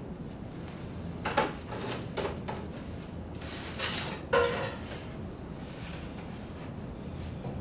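Thin plywood pattern strips knocking and clattering against the wooden deck beams as they are handled and laid in place, with a scrape about three and a half seconds in. The loudest is a sharp knock just after four seconds that rings briefly.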